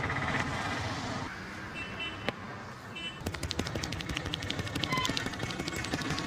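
Rapid run of sharp taps and crackling clicks from a barber's hands working on a customer's head during an Indian head massage, starting about three seconds in after a single click. It plays over outdoor street background noise.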